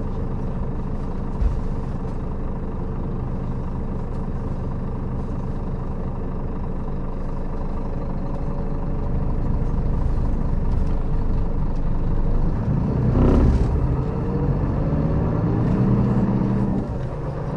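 Scania K400B coach's inline-six diesel idling, then pulling away: the engine gets louder from about nine seconds in, and after a short burst of noise near thirteen seconds its note climbs in pitch, dipping briefly near the end.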